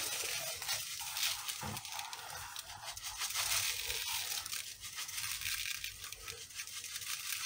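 Coarse salt being rubbed by hand into pieces of trout and scattered over them in a glass dish: a faint gritty scratching and rustling of salt grains.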